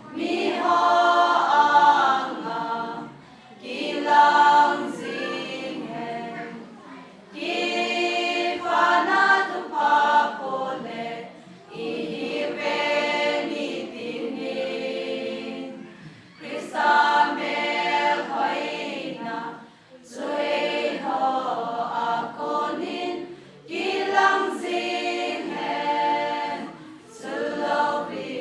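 Women's choir singing a cappella, in sung phrases of about three to four seconds with short breaks between them.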